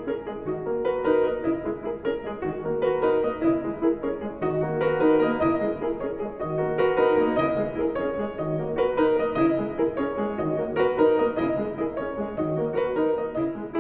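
Background piano music, a calm piece of repeated notes and chords.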